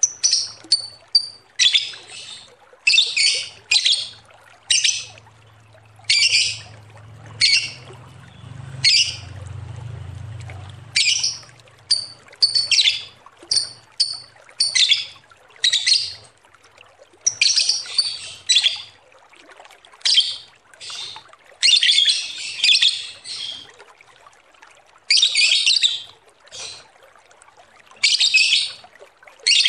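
Lovebird chattering its long 'ngekek' song: a rapid series of shrill calls in bursts, some short chirps and some runs of about a second, with brief pauses between.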